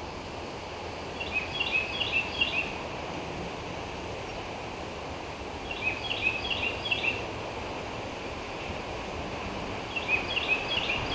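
A small songbird sings a short phrase of four quick high chirps three times, about four seconds apart, over a steady low rushing background.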